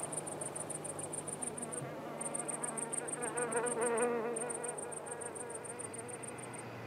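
Insect chirping in three high, rapid pulsed trills of about two seconds each, with short breaks between them. A fainter wavering sound rises underneath around the middle.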